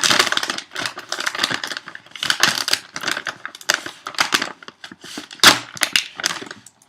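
Packaging crinkling and rustling as a parcel is unwrapped by hand, in a dense run of irregular crackles, with one sharp, loud crack about five and a half seconds in.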